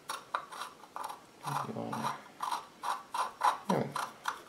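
3D-printed plastic ear cap being screwed by hand onto the threaded earpiece of a 1920s Brandes radio headphone: a gritty scraping with each twist, about three strokes a second, the fine threads fouled with old tape residue.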